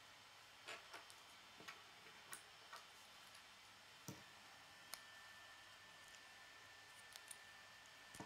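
Faint, scattered clicks of plastic K'nex rods and connectors being handled and snapped together, about a dozen light clicks spread irregularly.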